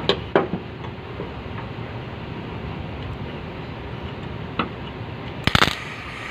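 A few sharp metal knocks on sheet-metal body panels during dent repair, then a quick burst of rapid taps about five and a half seconds in.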